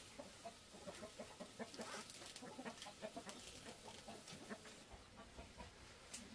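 Chickens clucking faintly: many short, irregular calls, with a few light clicks among them.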